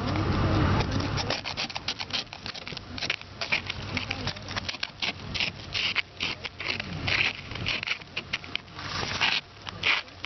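Ice being scraped and chipped off a truck with an electrical outlet cover used as a makeshift ice scraper: rapid, irregular scratching strokes, some longer and harsher.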